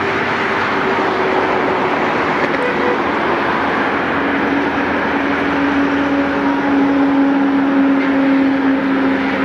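EMD WDP 4B diesel locomotive's 16-cylinder two-stroke engine running under power in the distance as the train comes along the line. It makes a steady rushing drone with a hum that settles to a lower, stronger tone about four seconds in.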